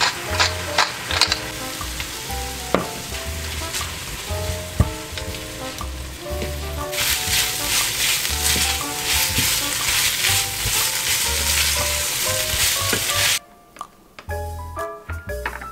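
Sausage slices and broccoli stir-frying in a stainless steel frying pan: steady sizzling while being stirred, louder from about seven seconds in. The sizzling stops suddenly near the end, leaving soft background music.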